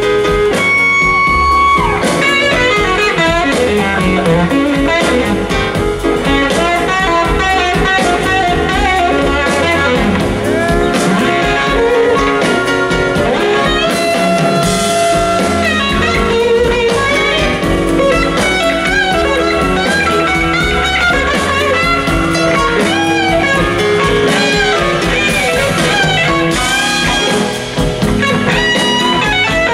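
Live blues band playing: a lead electric guitar (a Gibson SG) plays a bluesy line with notes that glide in pitch, over electric bass and drums.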